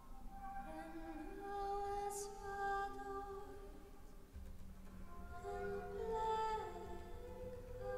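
Slow music from a music-theatre performance: a female voice sings long held notes with vibrato, sliding between pitches without clear words. A low rumble comes in a little past halfway.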